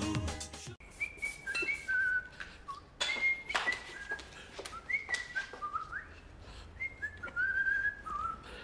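Theme music cuts off under a second in; then a person whistles a tune in short, high notes that step and slide, with light knocks and handling noises between them.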